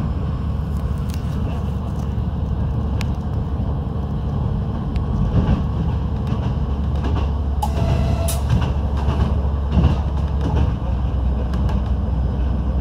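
PESA 620M diesel railcar under way: a steady low rumble of engine and wheels on the track, with a few sharp clicks and knocks.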